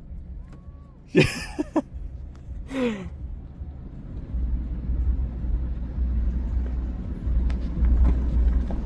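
Low vehicle rumble that grows louder about four seconds in, with two short vocal calls about one and three seconds in.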